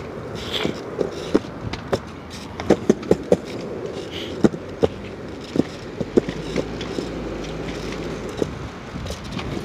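Kick scooter's small wheels rolling on a concrete sidewalk: a steady rumble broken by irregular clicks and knocks.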